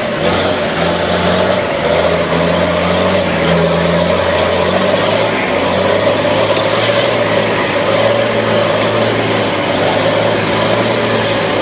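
Nissan Patrol ute's 4.2-litre turbo-diesel straight-six running as the ute is driven, heard from inside the cab, its engine note changing about five seconds in, over a steady hiss.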